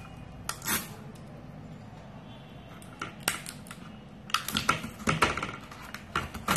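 Hands handling a laptop motherboard and peeling at its black plastic insulator sheet: scattered light clicks and crinkles. They come in short clusters, a few near the start, more about three seconds in, and a busier run around five seconds.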